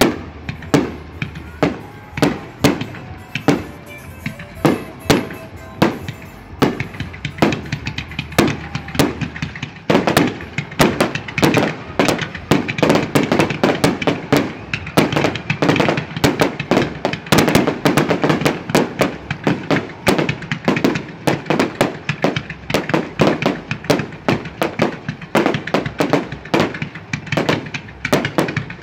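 Aerial fireworks shells bursting one after another, about two bangs a second at first. From about ten seconds in they come thicker and faster, with crackling between the bangs.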